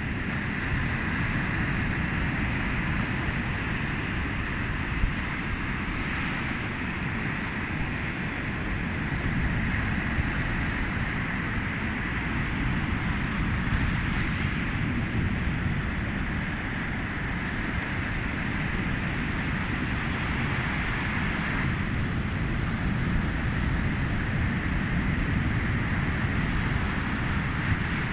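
Sea waves washing onto the shore, a steady surf with slow swells in loudness, with wind buffeting the microphone.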